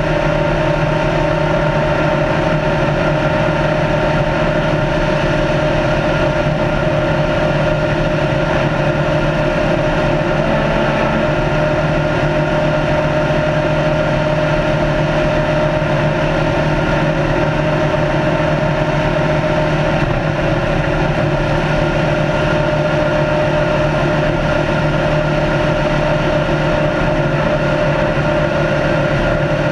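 Retired NASCAR stock car's engine running at a steady speed on the open road, its pitch holding constant with no gear changes or revving, over a haze of wind and tyre noise heard from on board.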